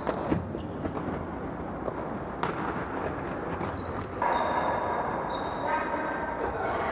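Echoing gym sound of an indoor soccer game: a sharp ball strike right at the start and another about two and a half seconds in, ringing in the hall. From about four seconds in, a steady held tone lasts about two seconds.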